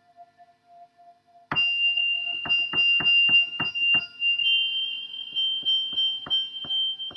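Improvised electronic keyboard score. A low held note fades away; then, about one and a half seconds in, a high steady tone comes in suddenly and steps slightly higher about four seconds in. Over it runs a series of sharp clicks, close together at first and sparser near the end.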